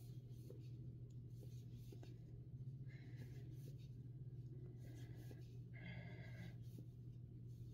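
Faint rustling and soft scratching of chunky fleece yarn being drawn over and through a Tunisian crochet hook as loops are pulled up across the row, over a steady low hum.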